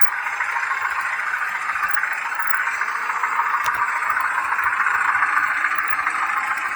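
Small electric motor and gearing of an H0 model locomotive running steadily. It makes an even whirring hiss with a fine rattle of wheels on the rails, picked up close by a camera riding on the train.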